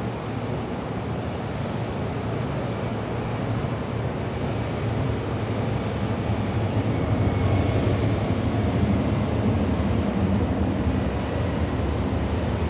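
Low, steady rumble of a simulated helicopter flying in, played over the simulator's loudspeakers, growing louder through the middle.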